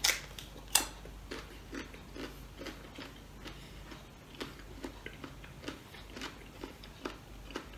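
Close-up eating sounds: two sharp crunches as a firm mango slice dipped in bagoong (shrimp paste) is bitten into, then steady crunchy chewing at about two chews a second.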